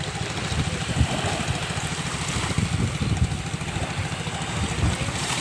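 Engine of a motorized outrigger boat (banca) running steadily as the boat moves across the water: a low, rapid, even pulsing drone.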